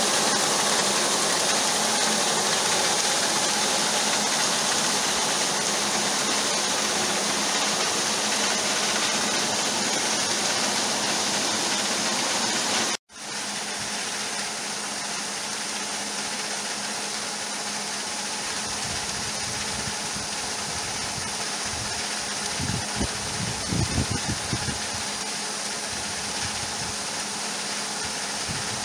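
Electric-motor grain auger running steadily, with a steady hum under the rushing hiss of grain moving through the tube and pouring out. The sound cuts off abruptly about halfway through, then a similar steady auger sound resumes a little quieter, with a few low rumbling bumps later on.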